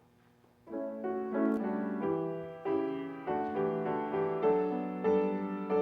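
A piano starts playing about a second in, a slow melody of struck notes that ring and fade, after a near-silent pause.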